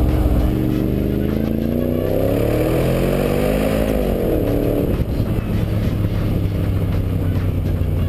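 Mercedes G55 AMG's V8 through its side-exit exhaust, accelerating: the engine note climbs steadily for about four seconds, falls away just before five seconds in, then settles into a low, steady rumble as the car cruises.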